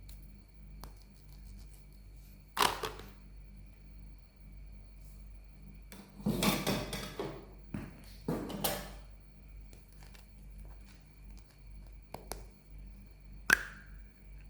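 Toys and packaging being handled: a sharp knock, then two stretches of rustling or scraping, and a sharp click with a brief ring near the end.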